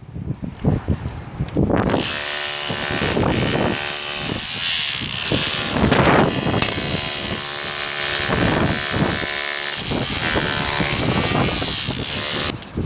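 A small motor, like a power tool's, runs steadily with a buzzing whine for about ten seconds, starting about two seconds in and stopping shortly before the end. A few low knocks come before it starts.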